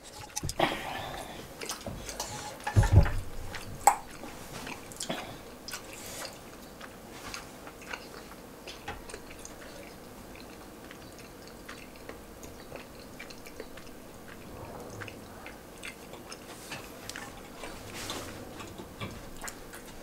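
Eating sounds: wooden utensils clicking and scraping in a frying pan of tteokbokki, with chewing, and a heavy thump about three seconds in.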